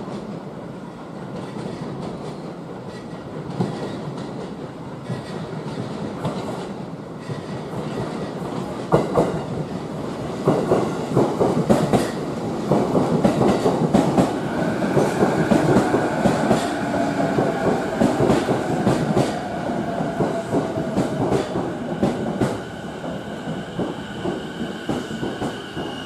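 JR East E233-series electric train pulling into the platform. Its wheels clack over the rail joints, then there is a steady high squeal and a slowly falling electric motor whine as it brakes to a stop.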